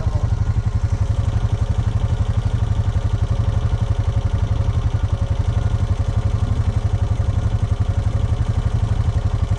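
Quad bike (ATV) engine idling steadily, with an even, rapid pulse and no change in revs.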